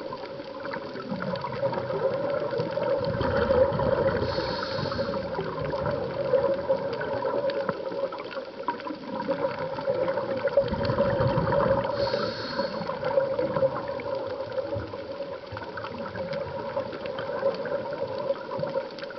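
Scuba diving underwater: a diver's exhaled bubbles gurgling from the regulator in two long surges about eight seconds apart, each shortly after a brief hiss, over a steady hum.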